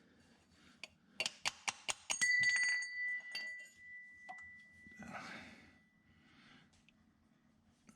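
Quick metallic clicks from tools working on the tractor's filter, then a sharp metal clink about two seconds in that rings on with a clear bell-like tone for several seconds, and a short rustle.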